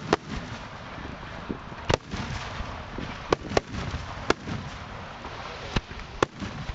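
Aerial firework shells bursting at close range: about seven sharp bangs at irregular intervals over a continuous crackle and rumble from the display.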